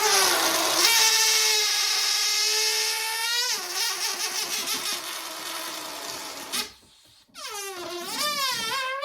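Latex party balloon deflating: air squealing out through the stretched neck in a loud, pitched whine. The whine holds steady at first, then wavers. It cuts out briefly about two-thirds in and starts again, its pitch bending up and down.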